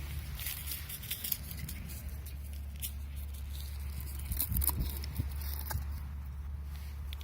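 Scattered light clicks and rustles, such as handling of a firework charge, over a steady low rumble of wind on the microphone; no launch or burst.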